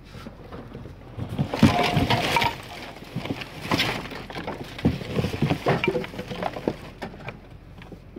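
Clattering, knocks and clinks as things are handled and pushed around at a plastic trash can, irregular and loudest in a burst a second or two in.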